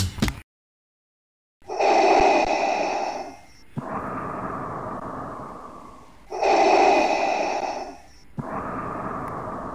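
Darth Vader's mechanical respirator breathing, played twice as a sound effect. Each cycle is a loud, harsh, masked draw of breath followed by a longer, quieter breath that fades away. Music cuts off just before it.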